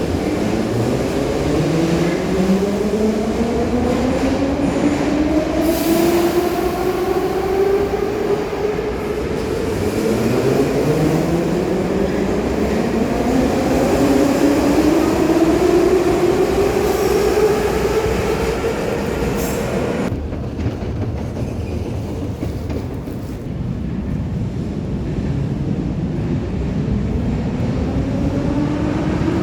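New York City subway train running with steady wheel and rail rumble. Its traction motors give a whine that rises in pitch as the train accelerates, once at the start, again about a third of the way in, and starting again near the end. The sound turns duller about two-thirds of the way in.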